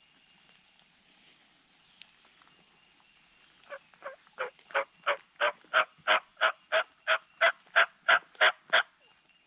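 A series of about sixteen wild turkey yelps, about three a second, starting soft and getting louder before stopping abruptly. This is the hen yelp sequence used to call to a gobbler.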